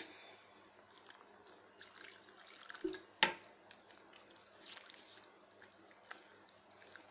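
Faint wet drips and small splashes as a little chilled water is added to thin ghevar batter of maida (flour) and mixed in a bowl, with one sharper tap about three seconds in.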